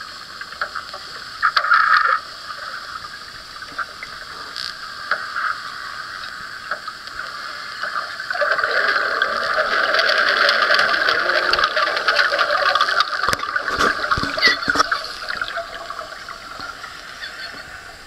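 Pink river dolphin sounds recorded underwater: scattered clicks over a steady rushing background, then a dense, louder crackling, rushing stretch from about eight seconds in until about fifteen, with a few low knocks near its end.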